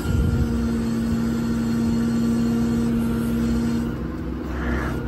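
6.7 Cummins diesel running at PTO idle-up, driving the hydraulics of an Altec AT37G bucket boom while the boom is worked. There is a steady low rumble under a steady hum that stops about four seconds in, and a brief low knock at the very start.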